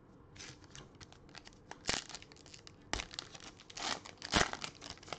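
A trading-card pack wrapper being torn open and crinkled by hand, a run of crackling with a few louder sharp crackles about two, three and four and a half seconds in.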